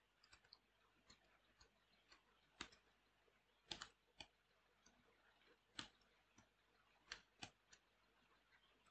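Faint computer-keyboard keystrokes: a dozen or so short clicks at irregular intervals as code is typed.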